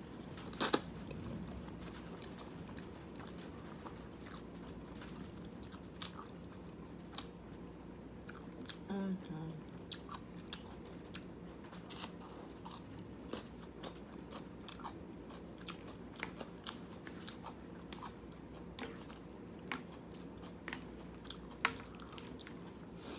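Close-up chewing of jjajangmyeon, thick noodles in black bean sauce, with many short wet mouth clicks scattered throughout. About nine seconds in there is a brief low vocal sound that falls in pitch.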